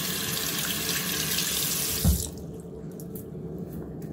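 Water running from a bathroom mixer tap over hands into a sink. About two seconds in there is a thump and the running water stops.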